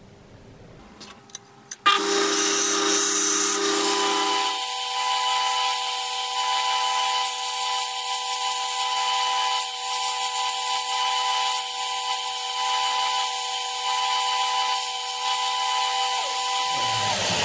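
A few clicks, then an electric power tool switches on about two seconds in and runs at a steady pitch with a high hiss. It winds down near the end as the motor slows.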